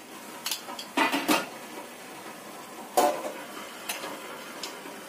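Several separate clinks and knocks of dishes and cookware being handled, the loudest about three seconds in.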